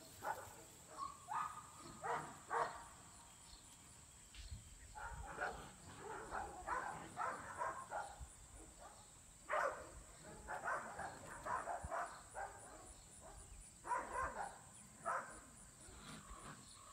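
Ten-week-old Pyredoodle puppies yipping and barking in several short flurries as they play.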